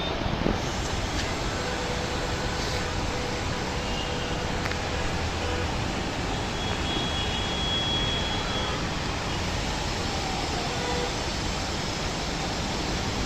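Heavy rain falling steadily, an even hiss, with a faint vehicle engine underneath.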